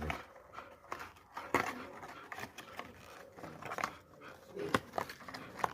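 Bull terrier panting and snuffling, with scattered short clicks and rustles, the loudest about one and a half seconds in and near the end.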